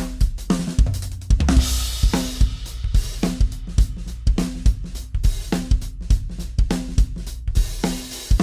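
Acoustic drum kit played in a steady groove: Pearl MMX bass drum kicks, regular snare hits and cymbals, with a cymbal wash ringing out about two seconds in.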